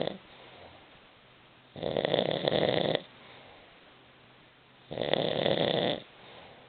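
An elderly woman snoring: two loud snores, each about a second long and roughly three seconds apart, with quieter breathing in between.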